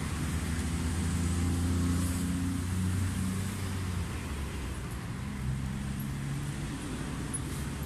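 Street traffic: a motor vehicle's engine running close by, a low steady hum that is strongest for the first four seconds or so and then eases off.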